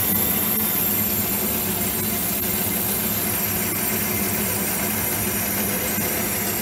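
Holbrook lathe running steadily, turning a steel shaft under slow power feed: an even mechanical hum from the spindle and feed gearing, with no change in speed.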